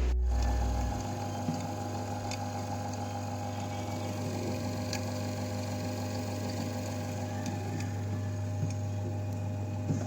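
Steady electrical or machine hum with several higher tones held over it and a few faint clicks.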